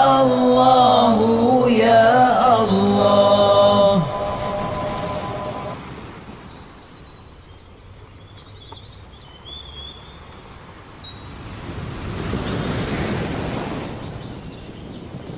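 A chanting voice holds and fades the last notes of a zikir line over the first four seconds, with a held tone lingering a little longer. After a quieter stretch, a soft rushing noise swells up and ebbs away in the second half.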